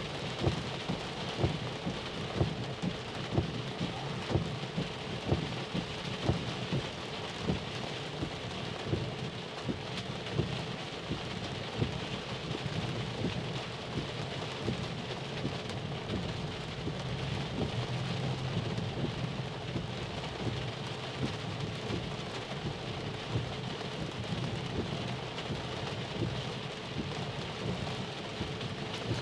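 Heavy rain pelting a car's roof and windshield, heard from inside the cabin: a steady hiss with irregular sharp drop impacts, over a low rumble from the moving car.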